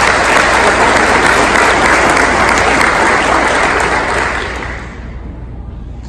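Audience applauding, then dying away about four to five seconds in.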